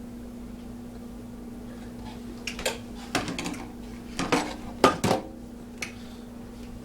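Kitchen dishes and utensils clinking and knocking together in a short run of sharp clatters, loudest about five seconds in, over a steady low hum.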